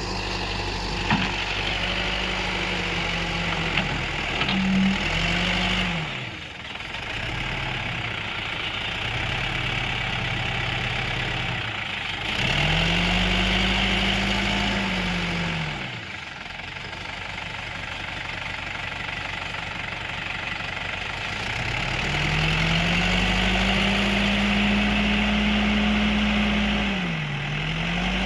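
Diesel engine of an Escorts Digmax backhoe loader at work, revving up and dropping back several times as the machine digs and loads, with the longest revs about halfway through and again for most of the last third.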